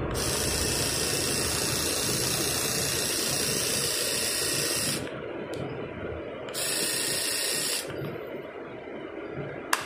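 Philips S3122/55 electric shaver running with its pop-up trimmer raised: a steady high hiss for about five seconds, switched off, then switched on again for just over a second. A single sharp click comes near the end.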